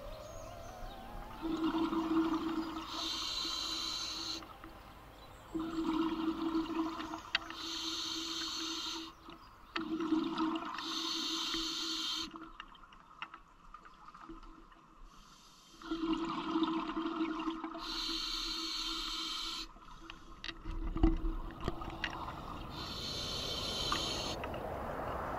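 Scuba diver breathing through a regulator underwater: five or six regular breaths about every four to six seconds, each a hissing, humming draw on the regulator and a gush of exhaled bubbles.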